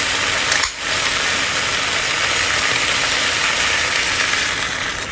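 Chicken wings sizzling loudly in hot oil in a clay pot. Near the end, soda is poured in over them and the sizzle dies down.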